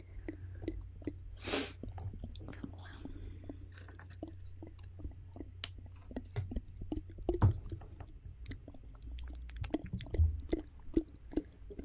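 Close-miked ASMR mouth sounds: many small wet clicks of lips and tongue, with a short breathy hiss about one and a half seconds in.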